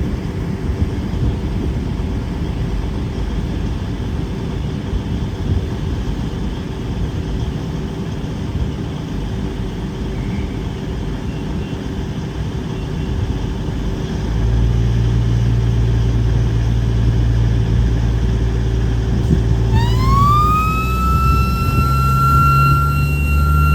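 Class 221 Super Voyager diesel-electric train departing, its diesel engines running and then powering up into a deeper, louder drone. Later a loud whine joins, gliding up in pitch and then holding steady.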